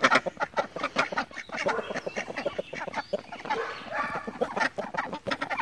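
Domestic hens and a rooster clucking and calling close by. The calls come mostly in the middle, over a steady run of short scratchy clicks.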